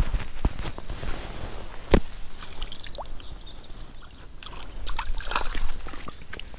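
Water dripping and splashing, with irregular sharp knocks and clicks, the loudest about two seconds in.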